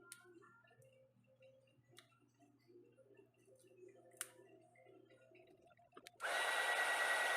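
Faint clicks and taps of small tools being handled, then about six seconds in an electric hot-air heat gun switches on and runs with a steady loud blowing noise and a high whine.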